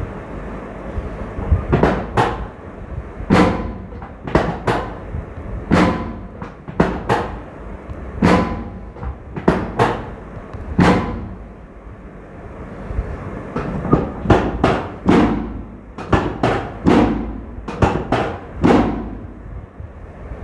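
A series of about twenty sharp strikes, many in quick pairs and a faster run of them near the end, over a steady low hum.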